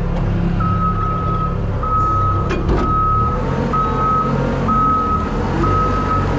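Truck's backup alarm beeping about once a second over the steady low running of its diesel engine as the truck reverses, with a brief knock near the middle.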